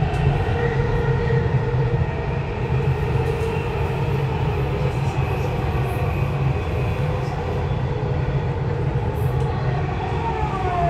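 Dubai Metro train running, heard from inside the car: a steady rumble with a motor whine, whose pitch falls near the end.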